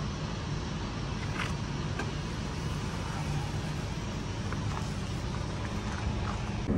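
A steady low machine hum, like a running engine, with a few faint clicks over it.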